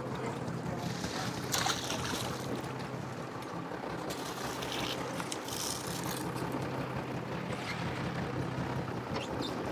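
Fishing boat's engine running steadily with a low hum, under wind and water noise, with a few brief hissing bursts of spray or wind.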